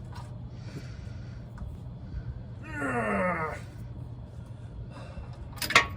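A man groaning once, a falling groan about three seconds in, as he strains against a stripped oil drain plug that will not come loose. Sharp metallic tool clinks come near the end over a steady low hum.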